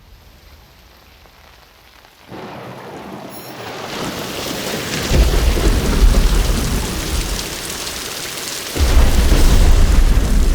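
Thunderstorm: rain sets in about two seconds in and grows heavier. Two long, deep rolls of thunder follow, the second starting near the end.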